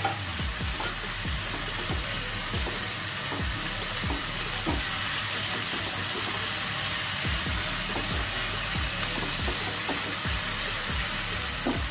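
Chopped onions, capsicum and green chillies sizzling steadily in hot oil in a non-stick wok, stirred with a spatula that scrapes and taps lightly against the pan now and then.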